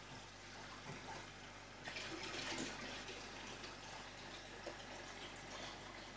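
Aquarium water bubbling and trickling steadily from a column of air bubbles and the tank's water circulation, heard faintly, a little louder about two seconds in.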